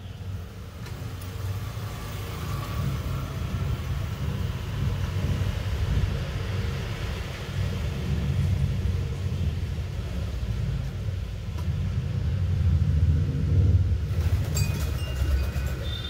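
Low, steady rumble that grows gradually louder, with a few faint high tones near the end.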